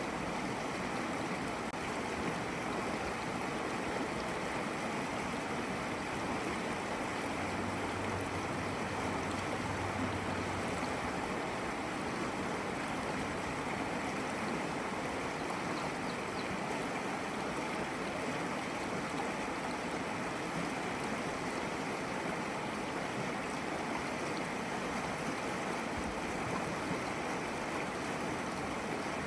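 Babbling brook: a small stream of water flowing and splashing steadily, with no change in level.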